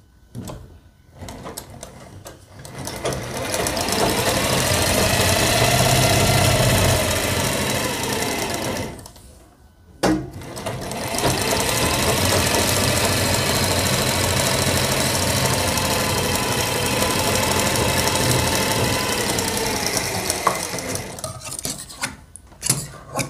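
Domestic sewing machine stitching a seam along a folded strip of fabric, speeding up into a steady run, stopping briefly about nine seconds in, then running again for about ten seconds before slowing to a stop near the end. A few clicks from handling the machine and fabric come at the start and end.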